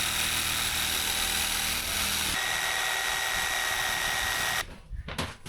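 Handheld power tool running steadily with a whine for about four and a half seconds. Its pitch shifts a little after two seconds in, then it cuts off suddenly.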